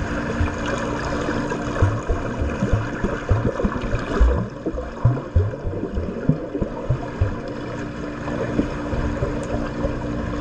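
Pool water churning and splashing as a swimmer strokes through it, with a run of irregular low thumps in the middle, over a steady low hum.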